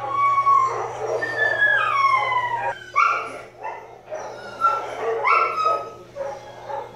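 A dog whining and yelping: drawn-out whines that slide down in pitch, with sharper yelps about three and five seconds in.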